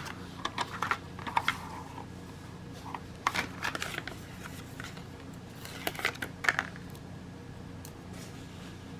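Hands handling a small plastic electrical switch and its wires, making scattered light clicks and rustles in three short clusters, over a steady faint hum.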